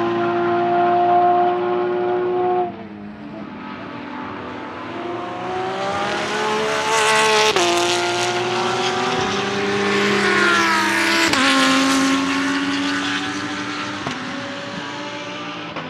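Porsche 992 GT3 R race car's naturally aspirated 4.2-litre flat-six held at high revs, cut off abruptly about three seconds in. It then accelerates past with rising revs and two quick upshifts, about halfway and about three quarters through, and fades as it pulls away.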